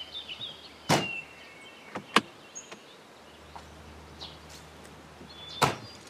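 Doors of an old Lada car being shut: a thud about a second in, two more just after two seconds (the second one the loudest), and a last one near the end.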